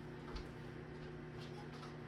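Faint light clicks of kitchen items being handled, twice, over a steady low hum.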